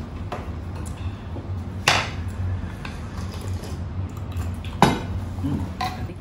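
Soup bowls and spoons clinking and knocking on a dining table, with two sharp knocks about two seconds in and near five seconds, over a steady low hum.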